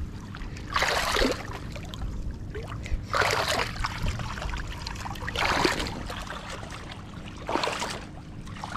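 Shallow seawater sloshing and splashing in four short bursts as an arm works down into a mantis shrimp burrow to flush the shrimp out.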